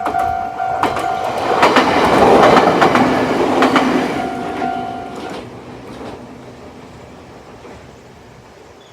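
A Jōmō Electric Railway train passing over a level crossing, its wheels clacking over the rail joints. Under it the crossing's old-style standard warning bell rings in a quick repeating pattern until it stops about five seconds in, and the train sound then fades away.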